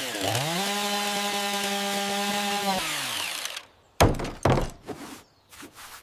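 An electric power saw spins up with a rising whine, runs at a steady pitch through wood for about two seconds, then winds down. A few sharp knocks follow, the first the loudest.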